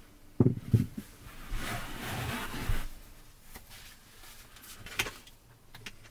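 Camping gear being shifted around on an SUV's cargo floor. Two sharp thumps come about half a second in, then a stretch of rubbing and shuffling, with a few lighter knocks later on.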